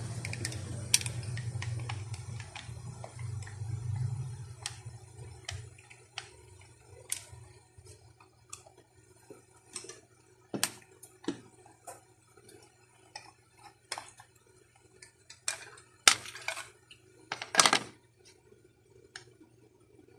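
Scattered sharp clicks and knocks of a Daisy Power Line 1200 CO2 pistol's parts being handled and worked loose by hand during disassembly, the loudest pair near the end. A low rumble fades out in the first few seconds.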